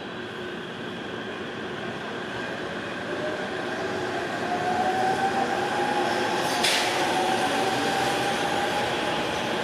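Musashino Line electric commuter train pulling out along the platform, with its wheels rumbling. The whine of its traction motors rises slowly in pitch as the train gathers speed, and the sound grows louder. A short burst of noise comes about six and a half seconds in.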